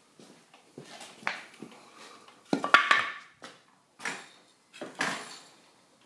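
Several sharp clattering knocks of a wooden board on a concrete floor as the powered wheelchair's knobby drive tyre strikes it and climbs over it, the loudest group about two and a half to three seconds in.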